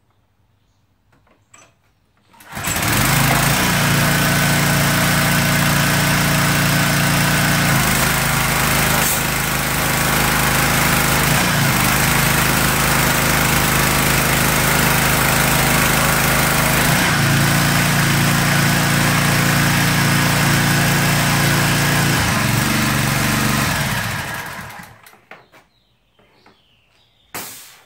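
Troy-Bilt pressure washer's small gasoline engine starting about two and a half seconds in and running steadily for about twenty seconds, with the high-pressure spray hissing from the wand, then shutting off. The pump is building pressure again now that its stuck check-ball valve has been freed.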